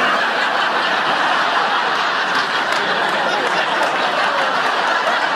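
Sitcom studio audience laughing, one long steady laugh from many people.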